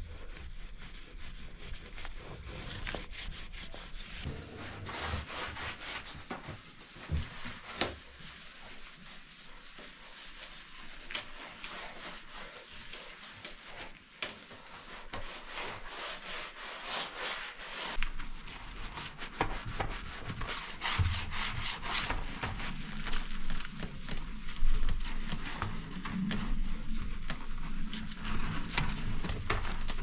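Cleaning cloth rubbing across glazed mosaic tiles, a window sill and wet window glass in repeated wiping and scrubbing strokes.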